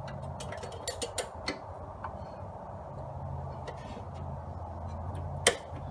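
Light metallic clicks and taps as a DeWalt DW734 planer knife is handled with a magnet tool and seated back into the cutterhead: a quick run of clicks in the first second and a half, then one sharper click near the end.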